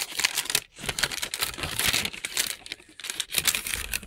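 Packaging being handled close by, crinkling and rustling with quick irregular crackles.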